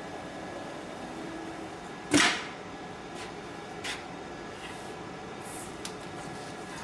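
A steady low hum, with one loud sharp clunk and short rush about two seconds in, typical of the CNC pattern sewing machine's clamp releasing. After it come a faint click and light metal sounds as the aluminium clamp plate holding the webbing is slid off the machine bed.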